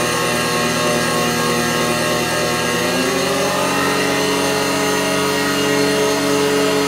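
Eurorack modular synthesizer drone from a feedback loop running through a chain of Make Noise echo modules: a dense, sustained cluster of many tones over a steady hiss. About three seconds in, the tones slide and settle into a new chord.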